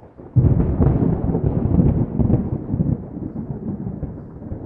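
A loud, low, uneven rumble that begins about half a second in.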